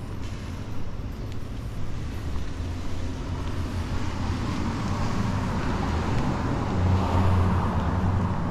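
Street traffic: a steady low rumble of motor vehicles, with one vehicle's engine and tyres growing louder over the second half and loudest near the end as it draws close.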